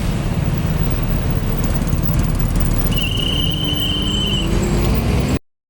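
Road traffic with a heavy vehicle's engine rumbling steadily, and a high steady squeal lasting about a second and a half midway. The sound cuts off abruptly near the end.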